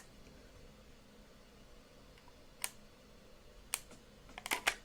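Small plastic buttons being pressed on a handheld device: a single click about two and a half seconds in, another near four seconds, then a quick run of about four clicks near the end.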